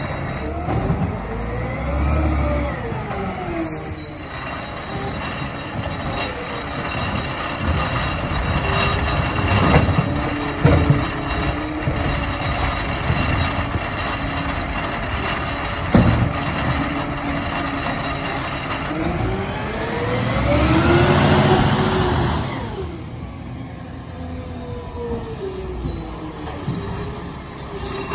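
Peterbilt 520 garbage truck with a McNeilus ZR automated side-loader: the diesel engine revs up twice, rising in pitch, to drive the hydraulic arm that lifts and dumps the carts. There are a few sharp bangs in the middle and short bursts of hissing.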